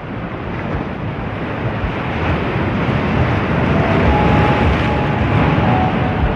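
Ocean surf breaking on a beach: a steady rush of waves that slowly grows louder.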